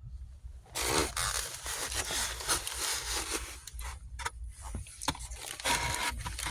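Takeout food packaging being handled and opened: rustling and crinkling with scattered clicks and scrapes, starting just under a second in.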